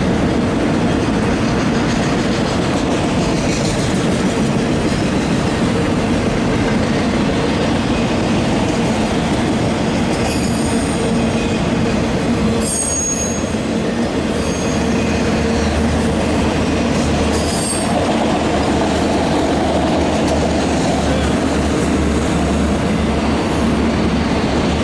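Empty autorack cars of a freight train rolling past, wheels running steadily on the rails. Brief high wheel squeals come a few times in the middle.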